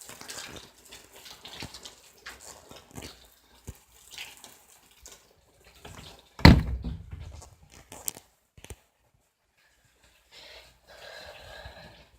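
Rainwater dripping and splashing in irregular small taps, with one loud sudden thump about six seconds in.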